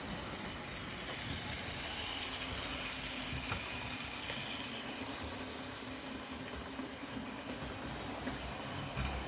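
Wrenn OO gauge 2-6-4 tank locomotive model running on its track: the steady whirr of its motor and wheels on the rails.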